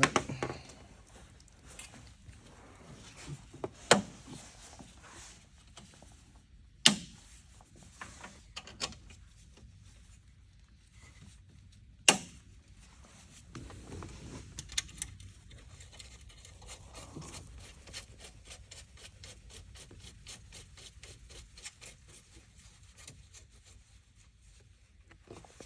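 Hand tools working on the car: a few sharp metallic clinks and knocks, then a ratchet wrench clicking steadily at about four clicks a second as a bolt is run in.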